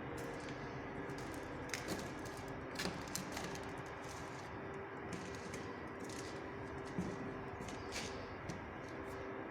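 Irregular light clicks and knocks, about half a dozen, over a steady hum with a faint held tone; the loudest knock comes about seven seconds in.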